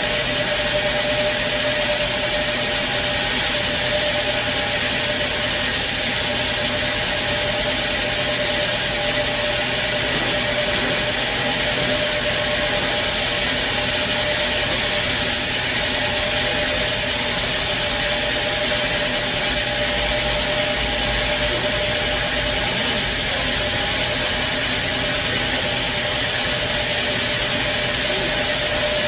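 Sawmill machinery running steadily, a constant mechanical drone with a steady high hum over a broad hiss.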